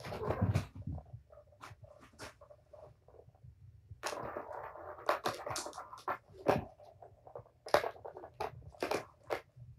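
Kittens batting the balls in a plastic Tower of Tracks cat toy: balls rolling round the tiers with a rumble, and many sharp clicks and knocks as they hit the track walls. The longest rolling stretch comes about four seconds in.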